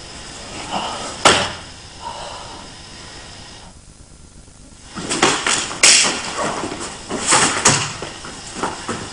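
Thuds and slaps of hand strikes and of a body landing on a padded mat during martial-arts sparring. There is one sharp hit about a second in, then a quick run of hits and thuds starting about five seconds in.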